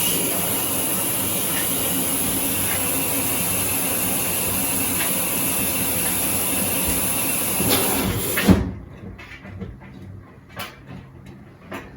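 GE UltraFresh front-load washer filling with water: a steady hiss of water rushing in through the inlet that cuts off suddenly about eight and a half seconds in. Quieter scattered knocks follow.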